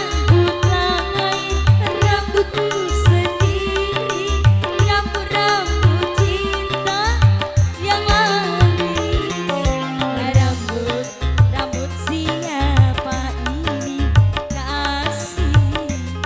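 Live dangdut band music: a steady drum and bass beat under a wavering melody line.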